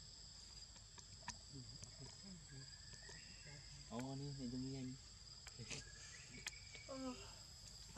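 Faint, steady high-pitched trilling of insects, with a low voice for about a second around four seconds in, another brief one near the end, and a few light clicks.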